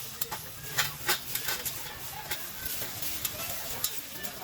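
Irregular crackling with sharp clicks and taps from metalwork on a stainless steel pipe, with no steady motor tone.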